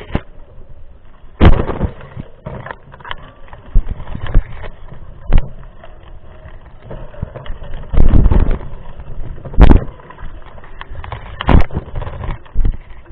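Mountain bike riding over rough trail: irregular knocks and rattles, with several loud rumbling surges.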